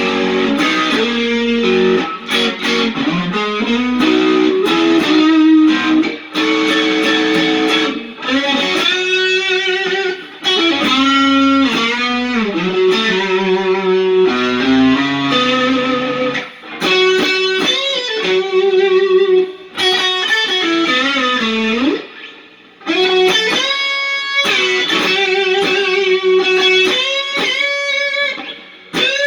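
Electric guitar played through a Keeley-modded TS808 and a Lovepedal Supersix overdrive into a Fender Hot Rod Deville amp. It plays single-note lead phrases with frequent string bends and short pauses between phrases.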